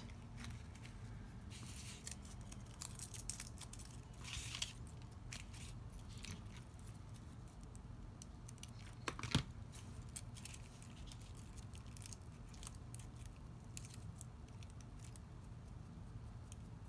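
Paper flowers and card being handled and pressed into place: scattered light rustles and small taps, with one sharper click about nine seconds in.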